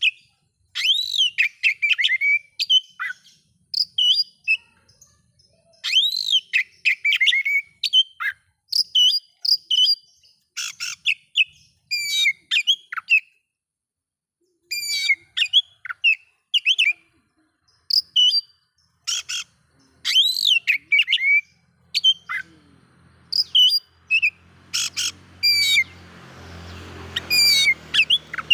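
Oriental magpie-robin (kacer) singing: loud, varied whistled phrases and chirps with sweeping, bending notes, broken by short pauses and one longer gap about halfway through. A low rumble comes in underneath over the last few seconds.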